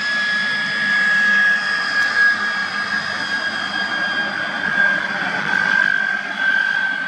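MiG-15UTI two-seat jet's centrifugal-flow turbojet running as it taxies: a steady high whine over a rushing hiss, drifting slightly lower in pitch.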